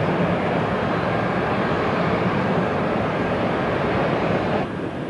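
Steady noisy roar of a jet airliner's engines as it rolls along the runway, heard on a camcorder microphone. Near the end the sound drops suddenly to a quieter, duller rumble.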